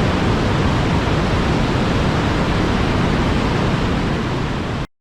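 Steady, loud rush of the 85-foot Box Canyon Falls plunging down Canyon Creek into its narrow rock canyon. It cuts off abruptly near the end.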